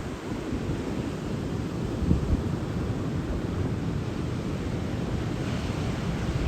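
Strong typhoon wind buffeting the microphone over the rumble of storm surf closing out on the beach, with a little more surf hiss near the end.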